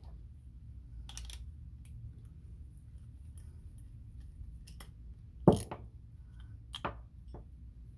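A screwdriver and a metal fishing-reel side plate handled on a workbench: a short scrape about a second in, a few small clicks, a sharp knock about five and a half seconds in as the screwdriver is set down, and a lighter knock just after.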